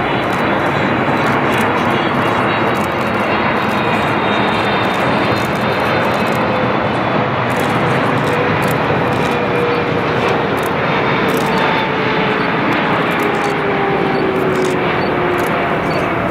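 A Boeing 777F freighter's two General Electric GE90 turbofans on final approach to landing: a loud, steady jet roar with whining tones that slowly fall in pitch as the aircraft passes and flares over the runway.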